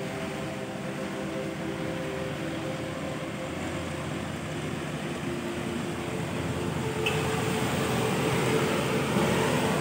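Trucks driving past on a wet road: a steady engine drone under the hiss of tyres on wet asphalt, growing a little louder near the end.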